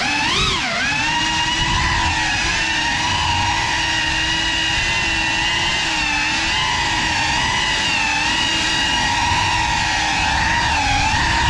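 GEPRC Cinelog35 ducted FPV quadcopter on 6S, its motors and propellers whining steadily in flight. The pitch wavers up and down with throttle changes near the start and again near the end.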